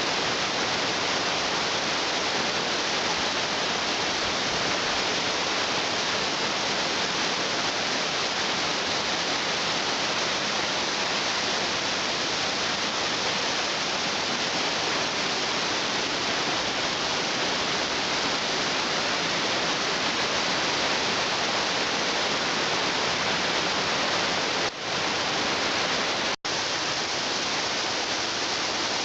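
Waterfall: a steady rush of falling water. The sound briefly cuts out twice near the end.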